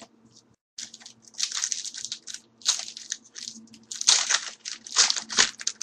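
Hands handling trading cards and pack wrappers, making irregular crackly rustling and crinkling that starts about a second in and grows busier toward the end.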